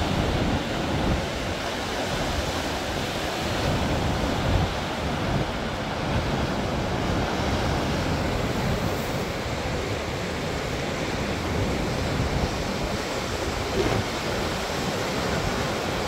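Rough sea surf breaking on a rocky shore in a steady wash of noise, with strong wind buffeting the microphone.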